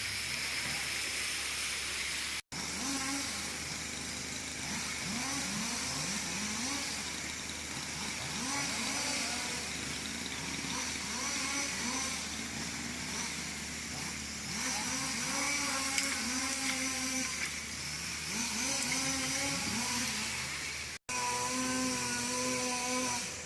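Small two-stroke engine, likely a chainsaw, revved up and let back down over and over, its pitch rising sharply each time. Near the end it runs at a steadier speed.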